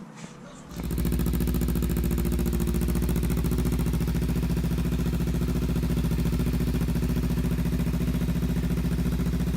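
Kawasaki Ninja 300's parallel-twin engine running at a steady idle, coming in under a second in.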